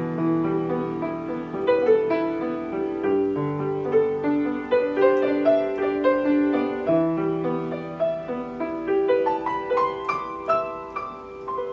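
Steinway piano being played: a flowing melody of single notes over held bass notes.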